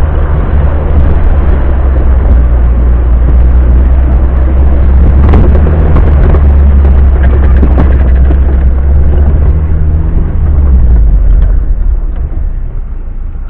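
Suzuki Vitara engine running under load as the car drives over rough off-road ground, with a strong low hum. Sharp knocks and rattles from the body and stones come between about five and eight seconds in. The engine note drops and eases off after about ten seconds.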